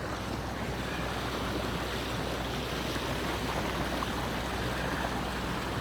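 Boat under way on engine: a steady low engine hum under the even rush of water along the hull.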